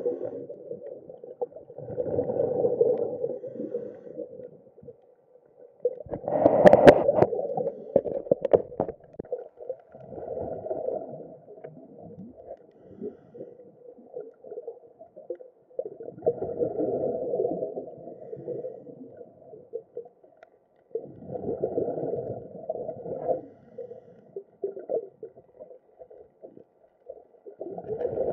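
Scuba diver breathing through a regulator underwater: a gurgling rush of exhaled bubbles about every five seconds, with a fainter rustle between breaths. The strongest exhale comes about six seconds in.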